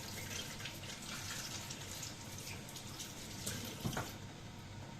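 Water running from a tap into a sink, cut off about four seconds in, with a couple of light knocks just before it stops.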